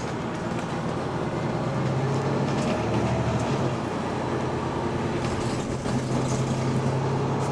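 Mercedes-Benz Citaro C2 hybrid city bus driving, heard from inside the passenger cabin: a steady engine and drivetrain hum that grows a little louder after about two seconds, with a faint whine drifting in pitch.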